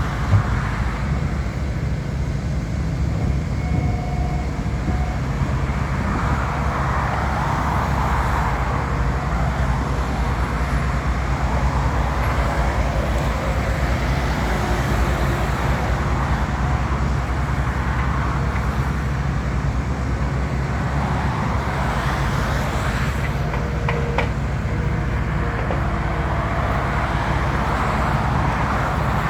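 Skid steer loader engine running steadily with a continuous low drone, amid the machinery noise of asphalt paving work.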